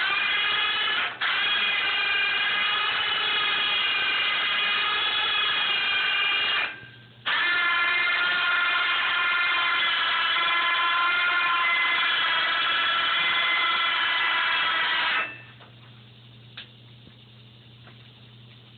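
An electric power tool's motor running at a steady high-pitched whine in two runs. The first run lasts about six and a half seconds. The tool stops briefly and then runs again for about eight seconds, before cutting off near the end.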